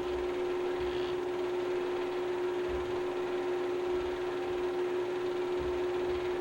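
A steady hum, one constant tone over a bed of hiss, with faint low thuds now and then.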